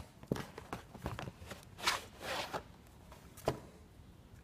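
Light handling noise from a cardboard air-filter box and the plastic air-filter housing: a few scattered rustles and knocks, the sharpest about three and a half seconds in.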